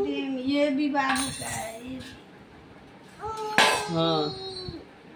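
A baby's long, held singsong vocalising, then stainless-steel bowls and a plate clinking and ringing as they are handled. There is one sharp clang about three and a half seconds in, with short baby vocal sounds around it.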